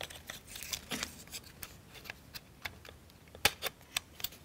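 Laser-cut plywood model parts clicking and rubbing together as the engine assembly is pressed into the chassis frame: a run of light clicks and rustles, with the sharpest click about three and a half seconds in.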